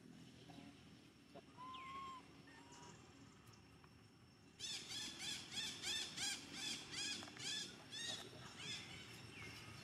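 An animal's fast run of high, arched squealing calls, about three a second, starting about halfway through and thinning to a few scattered calls near the end, after a couple of faint single calls early on.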